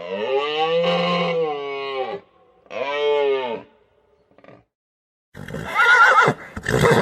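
Animal calls: a long call that rises and falls in pitch over about two seconds, a shorter one like it a second later, then a noisier call with a quavering pitch near the end.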